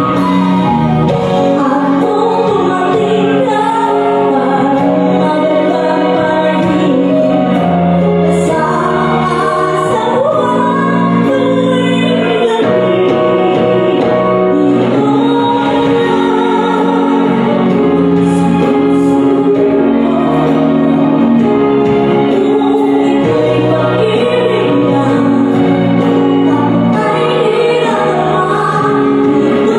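A woman singing into a microphone over backing music, holding long, wavering notes.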